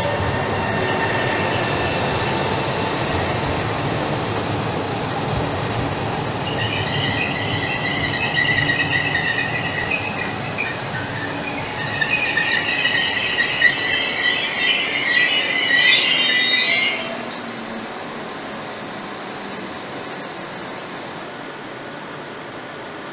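Malpensa Express electric train running into an underground platform: a low rumble of the moving carriages, then shrill brake and wheel squeal from about six seconds in, growing loudest just before it cuts off as the train halts. After that comes a steady hum from the standing train.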